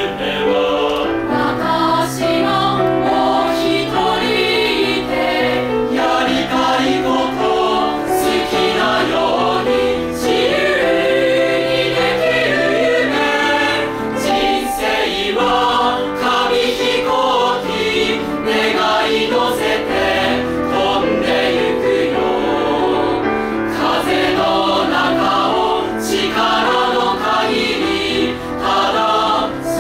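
A mixed high school choir of girls' and boys' voices singing a Japanese pop song together, continuously and at a steady level.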